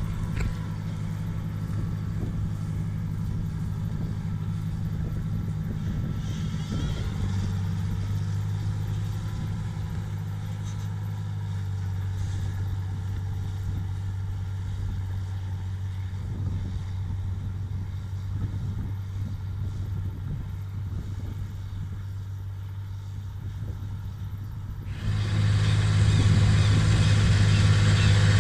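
John Deere 8100 tractor's six-cylinder diesel engine running steadily under load while pulling a disc harrow, heard muffled inside the cab. About 25 seconds in it turns suddenly louder and fuller, heard from out in the field with added hiss.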